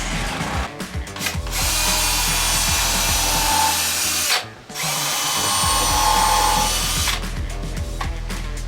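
Power drill running in two long runs of about three and two seconds with a brief stop between, over background music.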